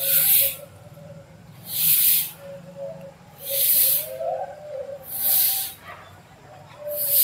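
Rhythmic swishing strokes of hand work in a garden bed, about one every 1.7 seconds, five in all, each swelling and fading.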